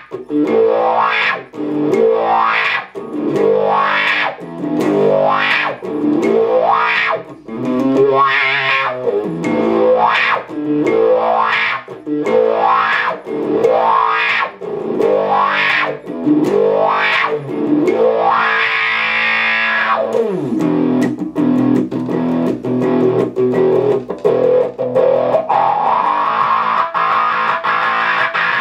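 Electric guitar through a vintage Sola Sound Colorsound Wah+Fuzz pedal, with the transistor fuzz and the wah both on: distorted chords repeated about every second and a half, each opened with a rising wah sweep. About two-thirds through, a note slides down and is held while the wah opens slowly.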